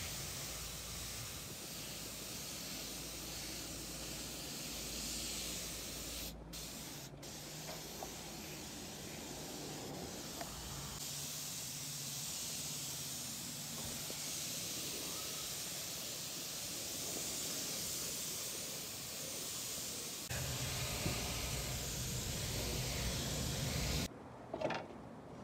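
Gravity-feed paint spray gun hissing steadily as it sprays paint, with two very brief breaks in the hiss about six and seven seconds in; the hiss cuts off abruptly near the end as the trigger is released.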